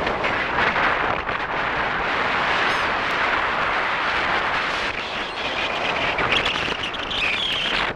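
Steady loud rush of wind and surf, with a brief gull call near the end.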